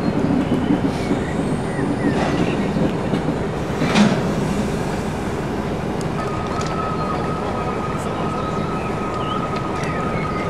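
Mobile cranes' diesel engines running steadily while a railway flat wagon rolls along the track. There is a single sharp knock about four seconds in, and a steady high whine begins about six seconds in.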